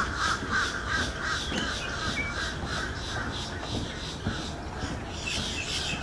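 Chorus of wetland birds calling: a steady run of mid-pitched calls, with a fast high pulsing note repeating about five times a second behind them.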